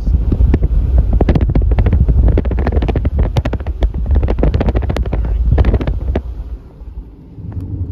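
Vehicle driving on a gravel road: loose stones crackling and pinging against the tyres and underbody over a low road rumble, which eases off about six seconds in.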